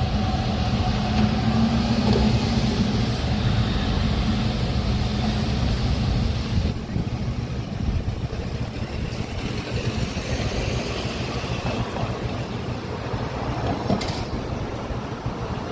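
City street traffic: a steady rumble of passing cars and engines, with a low hum in the first half and a brief click near the end.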